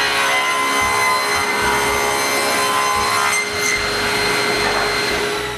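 Power saw ripping mahogany into strips, running steadily with a whine from the machine under the cutting noise, and winding down near the end.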